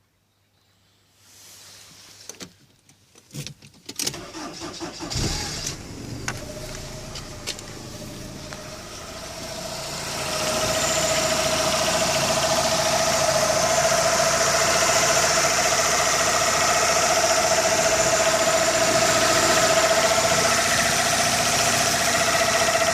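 1998 Toyota Camry 5S-FE four-cylinder engine cold-started: a few clicks, a short crank, then it catches and runs at idle. It grows louder about ten seconds in and holds steady, with the chattering/tapping that the owner says comes from the crankcase for about five minutes after every cold start.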